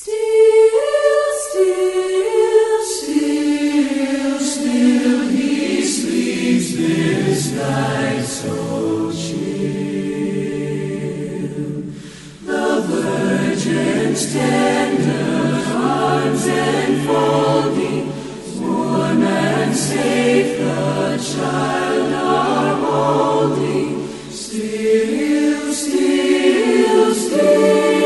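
Choir singing a Christmas carol in harmony, with long held notes in phrases and a short break about twelve seconds in.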